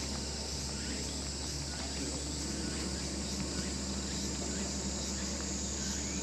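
Insects chirping in a steady high-pitched chorus, with a steady low hum underneath.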